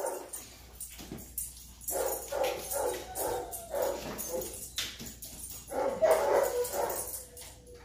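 Labrador retriever whining and whimpering in a series of short pitched cries, then a longer drawn-out whine that trails off near the end, with a couple of sharp taps in between.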